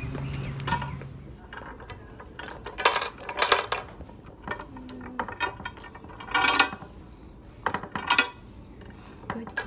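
Wooden beads on a child's wire bead-maze toy clacking against each other and the frame as they are pushed along the wires, in sharp clicks at irregular intervals.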